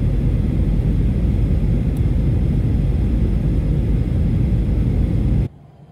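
Steady, loud cabin noise of a jet airliner in flight, the engines and rushing air heard from a window seat inside the cabin. It cuts off suddenly near the end.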